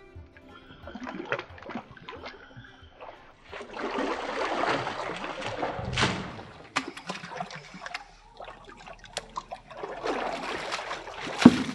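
Water poured from a small plastic bucket into a shallow pool for a couple of seconds, ending abruptly, followed by scattered splashes and a sharp hit near the end.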